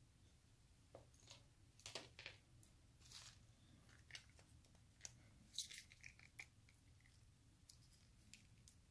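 Faint crinkling, rustling and a tear of a small plastic-foil ketchup packet being handled and ripped open, heard as scattered short crackles and ticks.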